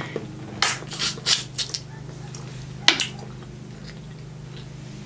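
Snow crab leg shells cracking and snapping as they are broken apart by hand: a few crackles in the first two seconds, then one sharp crack about three seconds in. A steady low hum runs underneath.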